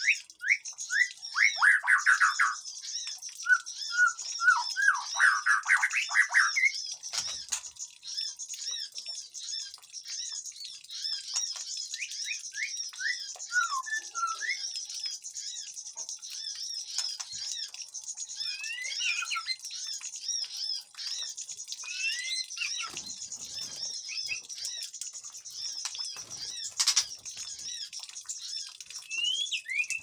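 Many small aviary birds chirping in a dense, continuous high-pitched chatter, with louder whistled, sliding calls from a white-rumped shama over the first seven seconds and now and then after. The birds are noisy and agitated.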